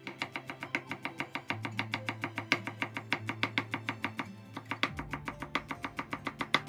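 Chef's knife rapidly slicing the white part of a green onion on a wooden cutting board: fast, even knife taps on the board, about eight a second, with a short pause a little past the middle. Background music plays underneath.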